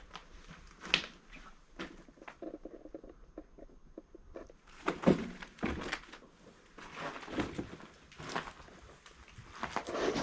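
Irregular footsteps with scattered knocks and scuffs.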